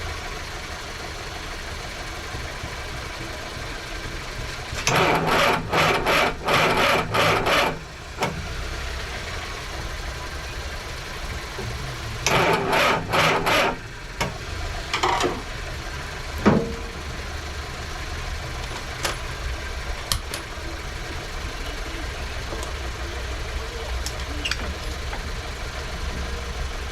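Mini's engine being cranked by the starter motor in two bursts of a few seconds each, turning over in a quick even rhythm without catching, followed by a couple of knocks. The engine won't start, which those working on it put down to the spark, perhaps a wrong firing order.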